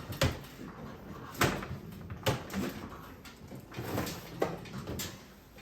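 Puppy incubator being handled and opened up: about six sharp knocks and clacks of its parts, spread unevenly over several seconds.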